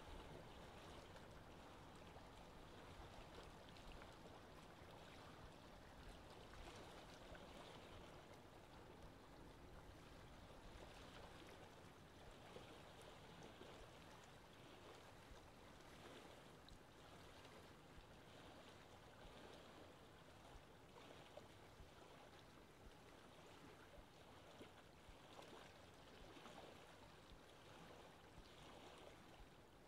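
Faint, steady wash of wind and choppy sea water, with no distinct events.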